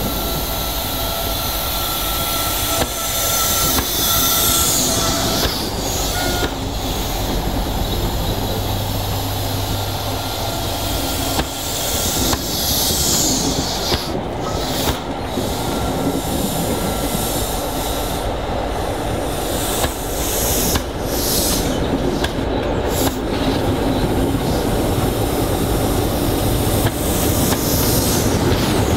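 A diesel-hauled train running by, its wheels squealing thinly on the rails at times, with scattered clicks from the track.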